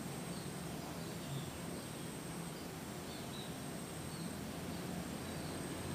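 Outdoor background ambience: a steady low hum and hiss with a thin, steady high whine, and a few faint, scattered bird chirps.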